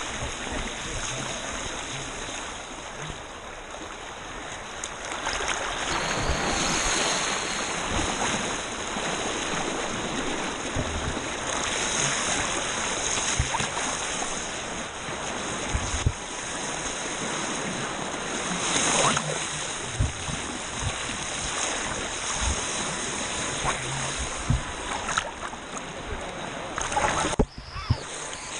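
Radio-controlled jet boat running on a river: a steady high-pitched motor whine that swells now and then over rushing water. The sound drops away briefly near the end.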